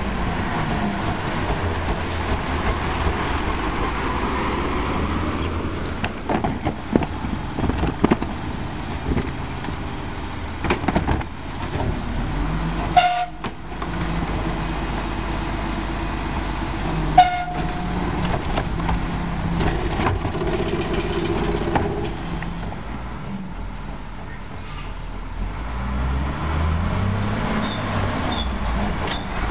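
Diesel engine of a Crane Carrier Heil rear-loader garbage truck idling and creeping, with a run of knocks and bangs as a cart is emptied into the rear hopper and two short toots a few seconds apart. Near the end the engine revs up as the truck pulls away, heavy throttle that sends out black smoke.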